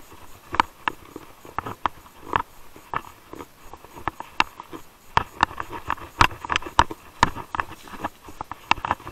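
Mountain bike rattling over a rough gravel track: irregular sharp clicks and knocks, most frequent in the middle stretch, over a faint rolling hiss.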